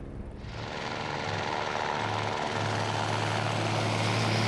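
Rally truck racing past close at speed: a rush of engine, tyre and wind noise that builds steadily louder, with a steady low engine drone underneath.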